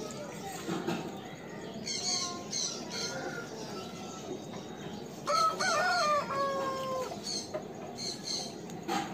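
Aseel rooster crowing once about five seconds in, a single drawn-out call of nearly two seconds that falls in pitch at the end, with softer short calls before it.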